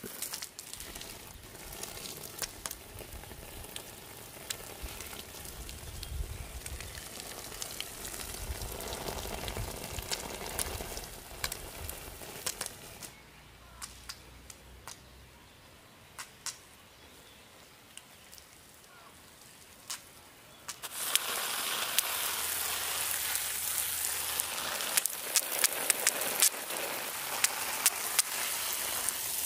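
Food frying in hot oil in a pan: a loud sizzling hiss with sharp spattering crackles that starts suddenly about two-thirds of the way through. Before that there are quieter scattered clicks and crackles.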